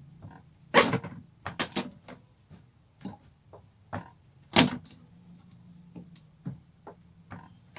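Irregular sharp knocks and clicks of peeled garlic cloves being pressed flat by hand against a tabletop, with two louder knocks, one about a second in and one a little past the middle.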